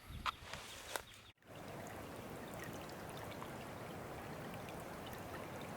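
A few sharp clicks in the first second, then, after an abrupt cut, a steady rushing noise like running water.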